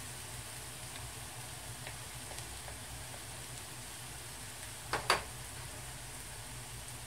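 Diced onions frying gently in butter in a nonstick pan, a steady soft sizzle, as they are browned toward caramelized. Two quick knocks come close together about five seconds in.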